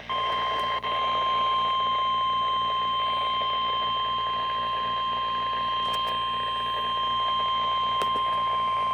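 NOAA Weather Radio 1050 Hz warning alarm tone: a single steady electronic tone held for about nine seconds over a faint radio hiss, with a brief dropout just under a second in. It signals that a warning broadcast is about to follow.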